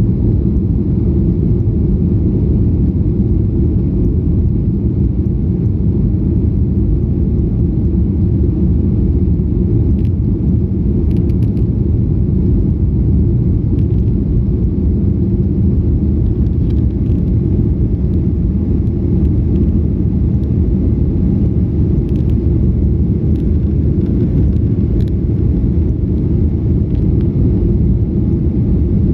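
Steady, loud low rumble of an airliner's engines and airflow heard inside the passenger cabin during the climb after takeoff.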